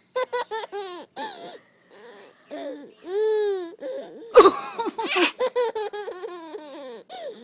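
A baby laughing in quick repeated bursts of high-pitched giggles, with a long drawn-out squeal about three seconds in and the loudest burst of laughter about halfway through.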